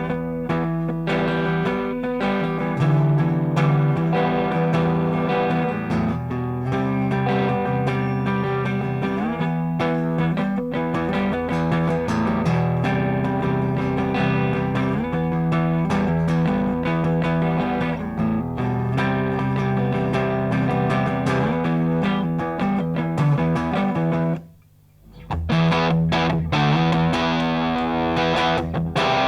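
Electric guitar played through a Marshall-voiced distortion pedal, the Rullywow Plexicruise, strumming distorted rock chords and riffs with a full bass-heavy tone. Near the end the playing stops for about a second, then starts again.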